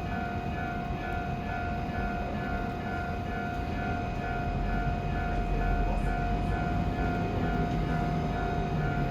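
Railway level-crossing warning alarm ringing in a steady pulse, about two strikes a second, over the low rumble of a passing train that swells around the middle.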